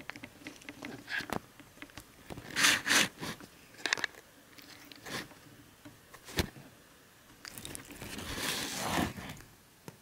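A cat pushing against and jostling the camera it is being filmed with: close scrapes, rubbing and knocks on the camera body, the loudest a few seconds in and a longer scraping rub near the end before the camera settles at a tilt. No snoring.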